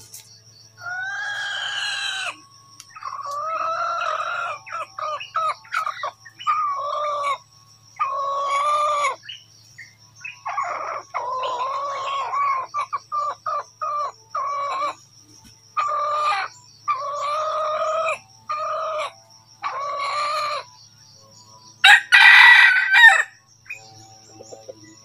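Red junglefowl rooster giving a long series of short, repeated clucking calls, with a louder, harsher call near the end. A steady high-pitched whine runs underneath.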